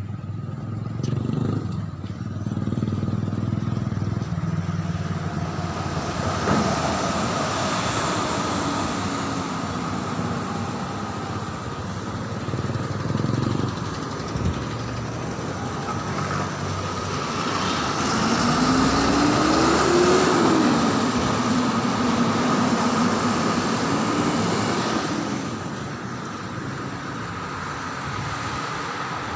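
Motor vehicle traffic passing on the road, engines and tyre noise, loudest about two-thirds of the way through as one engine rises and then falls in pitch while going by.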